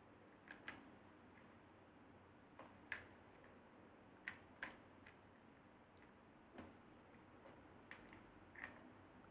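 Faint water drips and small ticks as a cat paws a wet cord out of a plastic basin of water: about ten short, sharp sounds at irregular intervals over near silence.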